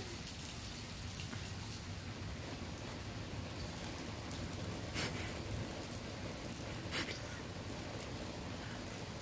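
Steady rain falling, an even hiss, with two sharp ticks about two seconds apart near the middle.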